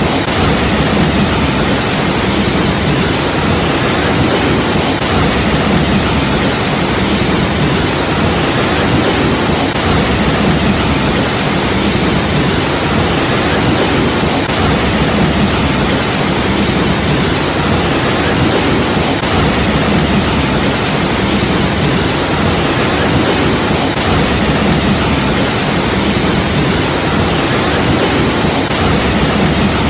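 Waterfall: water pouring and splashing in a steady, loud, unbroken rush.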